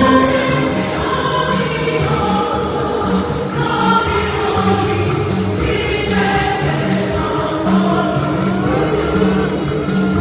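Choir singing gospel music with instrumental accompaniment and a steady bass line.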